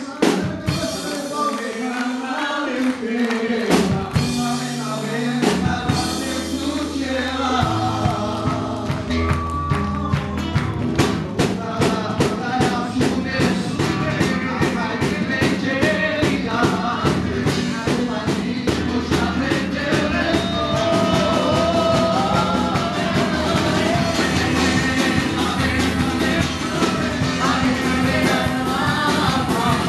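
Live worship band: several voices singing into microphones over guitars and percussion, with the drums coming in on a fast, steady beat about eight seconds in.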